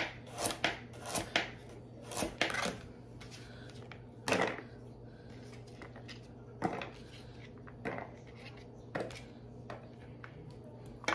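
Kitchen knife slicing through carrots with a sharp knock on each cut. A quick run of cuts, about three or four a second, comes first, then single cuts about a second apart.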